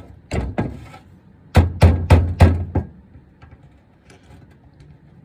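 Hammer blows: two knocks, then a run of five about three a second, in the work of taking apart a drill press chuck.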